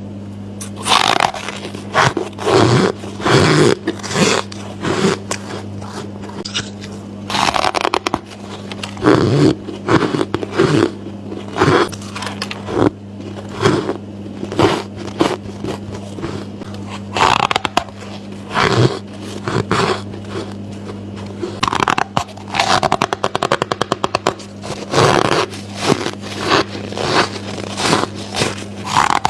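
Close-miked bites into squeaky ice: a long series of separate crunching, squeaking bites into frozen ice chunks, over a steady low hum.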